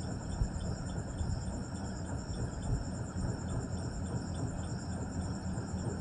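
Insects chirping steadily in a high shrill trill with a faint repeated ticking, over a low rumble of wind or handling on the microphone.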